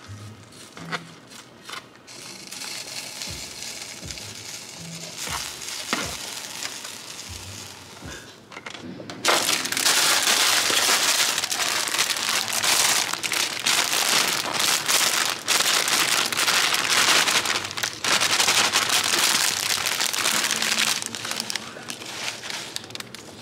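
Sizzling and crackling of frying in a pan, starting suddenly about nine seconds in and staying loud, after a stretch of lighter clicks and knocks.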